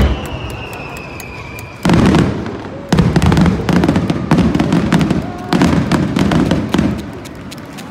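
Aerial fireworks shells bursting overhead: a loud burst about two seconds in, another a second later, then more bursts with dense crackling that fades near the end. A thin whistle falls slightly in pitch during the first two seconds.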